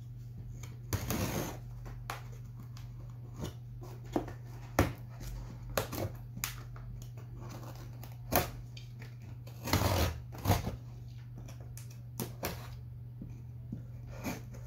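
Knife cutting through packing tape on a cardboard box: scattered scratches, clicks and short rips, with two longer cutting strokes about a second in and near ten seconds. A steady low hum runs underneath.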